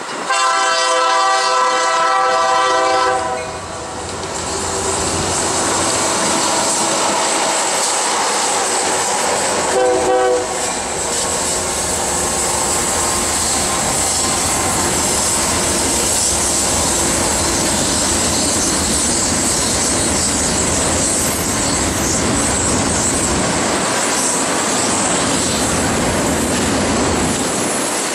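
Union Pacific freight train led by an EMD SD70M sounding its horn in a blast of about three seconds, then a short blast about ten seconds in. The locomotives' diesel engines and the cars then roll past with a steady clatter of wheels on rail.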